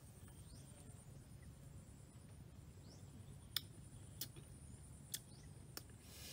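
Faint steady high-pitched insect trill, with a few short rising bird chirps. In the second half, four sharp clicks sound about half a second apart, the first the loudest.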